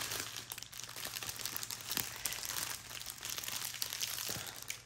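Small clear plastic zip bags of diamond-painting drills crinkling and rustling as a strip of them is handled and turned, with irregular small crackles.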